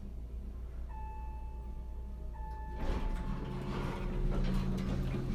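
Otis hydraulic elevator arriving at a floor: a low steady hum, a chime sounding twice, then the doors sliding open about three seconds in.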